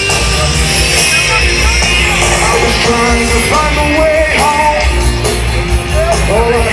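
A rock band playing loud live over a festival PA, heard from far back in an open-air crowd. Singing comes in over the band about three and a half seconds in.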